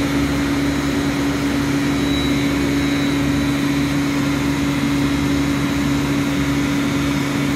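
Steady drone of running machinery: a fixed-pitch hum over an even rush of noise.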